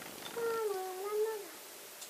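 A young child's voice making one drawn-out, meow-like call, about a second long, holding its pitch and then dropping at the end.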